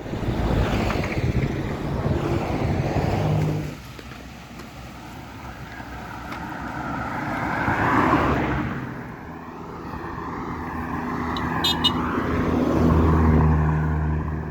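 Motor vehicles passing on a road: a loud pass in the first few seconds, another swelling and fading about eight seconds in, and an engine hum growing louder near the end, with a brief high rattle just before.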